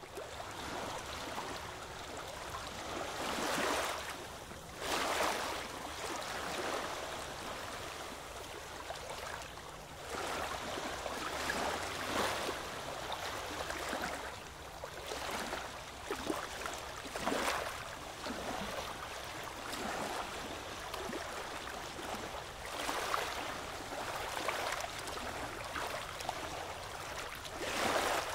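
Small sea waves lapping and splashing against rocks: a steady wash of water with a soft surge every couple of seconds.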